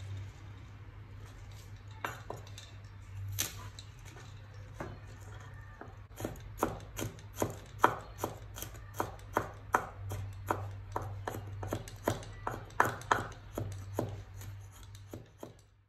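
Cleaver chopping on a wooden cutting board: a few scattered knocks, then from about six seconds in a steady run of chops, about three a second, mincing garlic. A low steady hum runs underneath.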